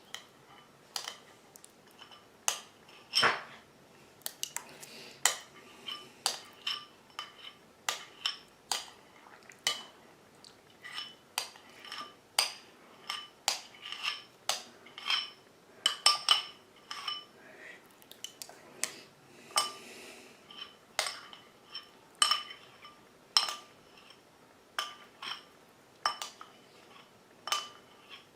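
Cutlery clinking against crockery during eating: a steady run of sharp, ringing taps, about one to two a second.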